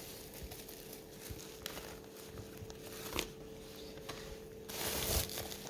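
Packaging being handled and rustled during unboxing, with scattered small clicks, a sharper clack about three seconds in and a louder rustle of plastic or paper near the end.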